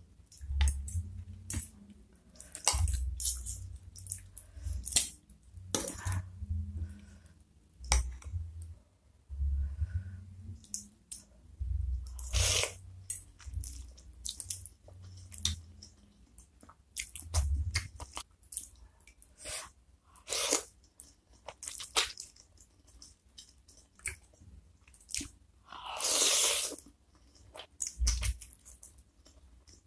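Close-miked eating sounds: chewing and slurping of flat yellow noodles from beef meatball soup, with many short wet mouth smacks and clicks and one longer slurp near the end.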